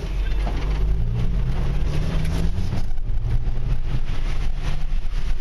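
A 4x4's engine running steadily as it drives over a rough dirt trail, heard from inside the cab. The engine's pitch shifts slightly, and short knocks and rattles come from the bumpy ride throughout.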